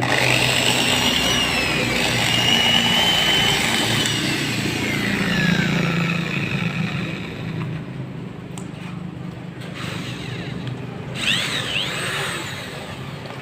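Maktec MT90 angle grinder switched on: its whine climbs and holds, then falls away as it coasts down about five seconds in, and a short second run-up comes near the end. It runs rough with a snoring ('ngorok') sound, the sign of a burnt armature.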